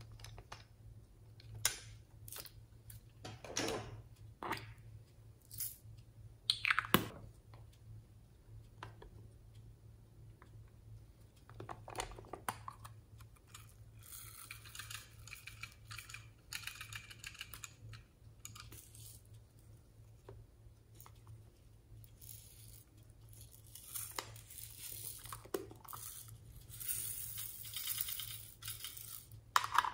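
Hard plastic toys handled over a glass dish: scattered clicks and knocks of plastic, a few sharper ones early on, with two stretches of soft rustling hiss in the second half.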